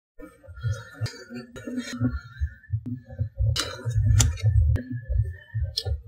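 Outdoor recording on a hand-held camera's microphone with the voices cut out: an uneven low rumble of wind and handling noise, broken by several sharp clicks.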